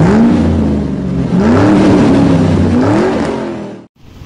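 Car engine revving, its pitch climbing three times, then cutting off abruptly shortly before the end.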